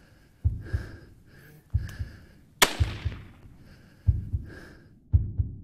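A slow heartbeat of double thumps, about one every second and a quarter, with breathing between the beats. One rifle shot cracks about two and a half seconds in and rings off.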